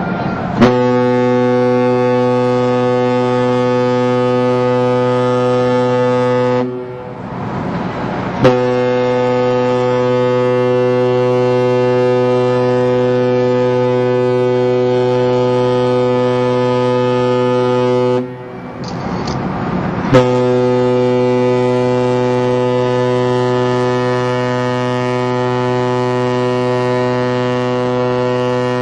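An NYK Line ship's whistle sounding three long, deep blasts. The first lasts about six seconds and the other two about ten, with short pauses between them. Each blast opens with a sharp click.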